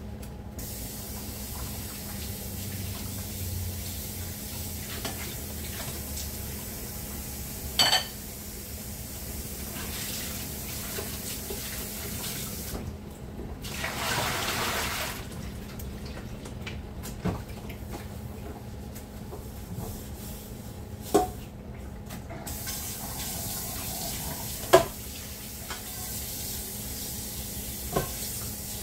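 Dishwashing at a kitchen sink: tap water running, with a louder gush of water about halfway through and several sharp clinks of dishes being handled, the loudest a little before the end.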